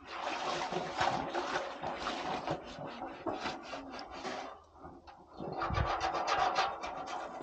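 Dense rubbing and scraping in two spells: the first about four seconds long, then a short pause, then a second spell of about two seconds with a dull thump near its start.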